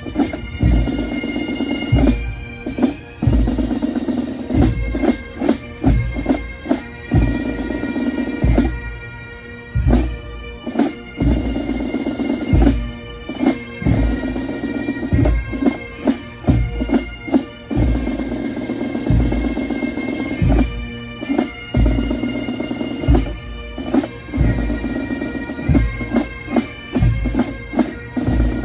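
Pipe band playing: bagpipes sound a tune over their steady drone, with frequent drum strikes.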